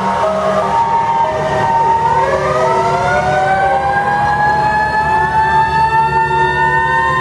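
Sirens of passing vintage fire engines. For the first two seconds a siren alternates between two pitches. Then from about two seconds in, a wind-up siren rises in pitch and holds a steady wail, over the low running of the trucks' engines.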